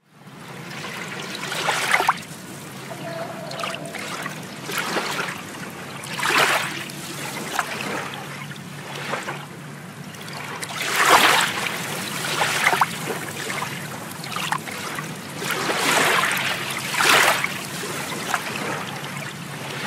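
Water splashing and trickling in a cenote, coming in surges every one to few seconds over a steady low hum.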